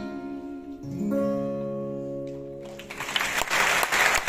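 Final chord of a song on acoustic guitars, struck about a second in and left to ring and fade. Audience applause breaks out near the end and grows louder.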